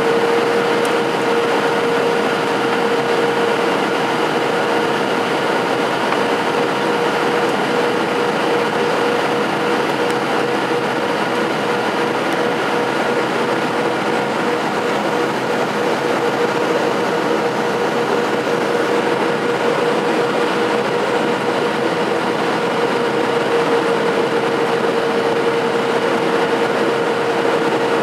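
Cabin noise of a Boeing 737-700 in flight, heard inside the cabin by the wing: a steady rush of air and CFM56-7B engine noise with a steady hum running through it.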